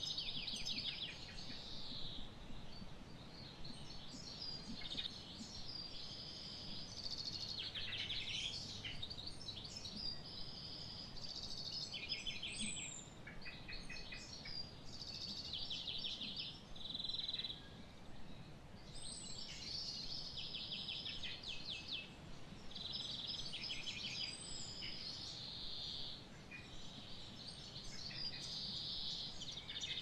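Small wild birds chirping and calling throughout, with many short calls and quick trills overlapping, and a few high whistled notes sliding down in pitch. A steady faint background noise runs beneath them.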